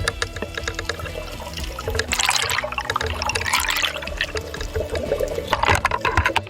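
Water sloshing and splashing, with uneven gurgling and many small clicks, and heavier splashy stretches about two seconds in and again near the end.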